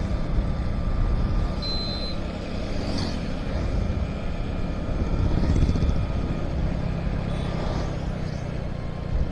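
Motorcycle engine running steadily while riding at road speed, with wind and road noise on the microphone. A short high tone sounds about two seconds in.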